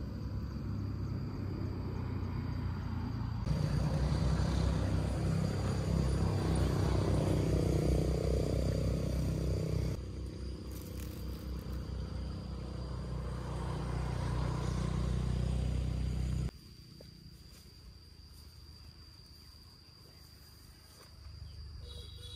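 Insects droning steadily at a high pitch, under a louder low rumble that stops abruptly about sixteen seconds in.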